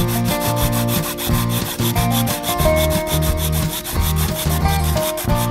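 Hacksaw blade sawing through a PVC pipe in quick back-and-forth strokes, several a second, over background music.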